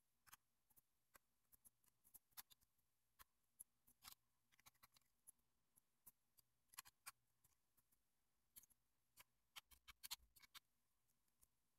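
Near silence with faint, scattered small clicks of a small screwdriver turning screws out of a digital camera's body.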